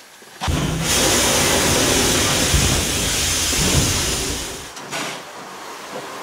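Steam tram locomotive letting off steam: a loud hiss with a low rumble under it. It starts abruptly about half a second in and dies away after about four seconds.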